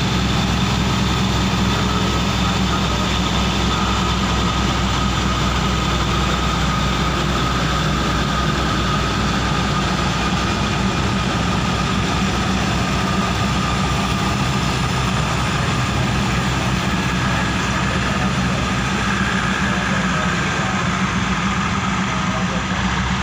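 Diesel railcar train idling at a station platform: a steady low engine drone with a thin, constant whine above it.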